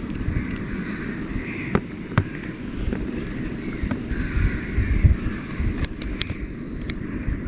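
Steady low background rumble with a few sharp clicks, two of them about two seconds in and a quick cluster of four around six to seven seconds.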